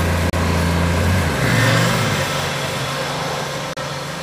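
A vehicle engine running steadily, its pitch stepping up about a second and a half in, with a brief dropout near the end.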